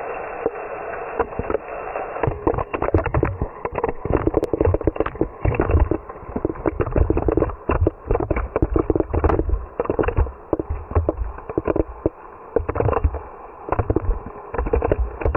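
Rainwater spilling off a metal awning and striking an action camera's waterproof housing, heard through the housing and slowed to quarter speed: a dense, irregular run of deep thuds and watery bloops.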